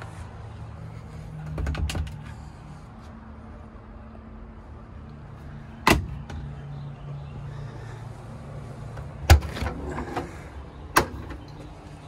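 Sharp clicks and knocks from the latches and panels of a 1968 Volkswagen Westfalia camper bus being handled, among them a wood-panelled cabinet hatch pulled by its handle. There is a short run of knocks about two seconds in, and single sharp clicks around six, nine and eleven seconds, over a steady low hum.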